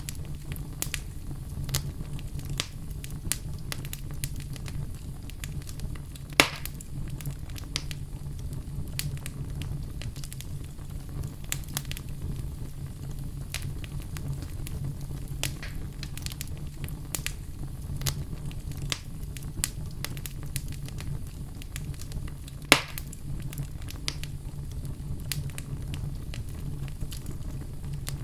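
Wood fire burning in a fireplace with a steady low rumble and constant crackling. Two louder, sharp pops stand out, one about six seconds in and one near the end.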